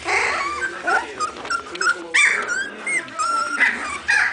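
Three-week-old border collie puppies whining and squealing: a string of short high-pitched calls, with a louder rising-and-falling squeal about two seconds in.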